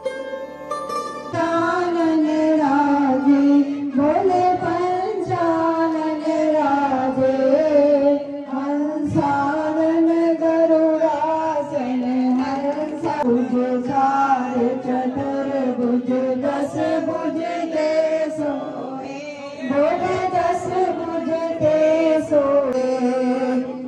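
Plucked-string music gives way about a second in to a voice singing a devotional melody over musical accompaniment, the singing continuing without a break.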